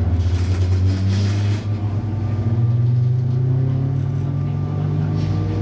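MTR East Rail MLR electric train pulling out of a station, its traction motors whining with a pitch that rises steadily as the train gathers speed. A brief hiss sounds in the first second and a half.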